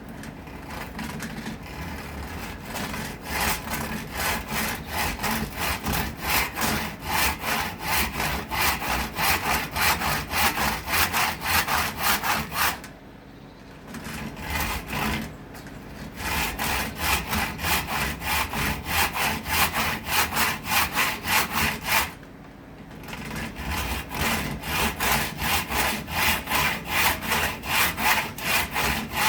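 Hand saw cutting through acacia wood in quick, even back-and-forth strokes, pausing twice briefly.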